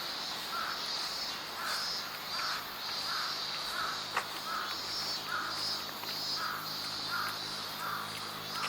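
Cicadas singing, a steady high pulsing drone, with a short call repeating about every two-thirds of a second through it. A single sharp click about four seconds in.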